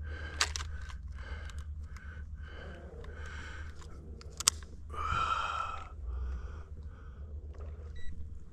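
Crunchy rustling and clicking handling noises, a few a second, as a crappie is handled for weighing on a scale, over a steady low hum. A longer rasping rustle comes about five seconds in.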